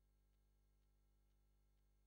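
Near silence: a faint steady hum with a faint tick about twice a second.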